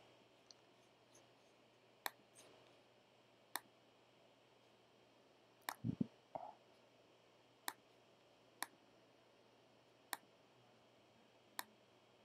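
Computer mouse buttons clicking about seven times, singly and a second or two apart, over quiet room tone, with a quick cluster of clicks and a duller knock about six seconds in.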